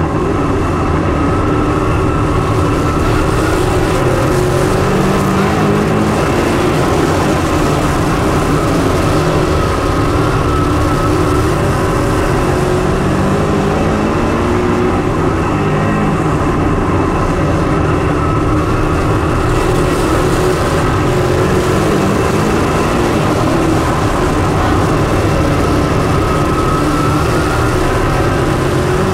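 Motor-vehicle engine noise running steadily with no break, a dense engine drone whose pitch rises and falls slightly now and then.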